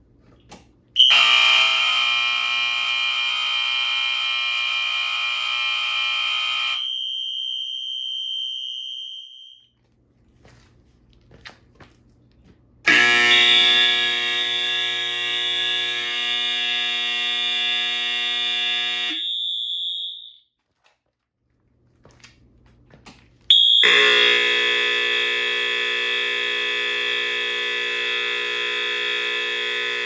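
Fire alarm sounding three times, each a steady, shrill, many-toned blast of about six seconds with a few seconds of quiet between; a single high note rings on briefly after each blast cuts off.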